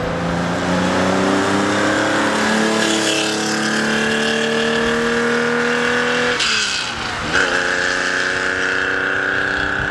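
Classic Porsche 911's air-cooled flat-six accelerating away. Its pitch climbs steadily, drops suddenly at an upshift a little past halfway, then climbs again.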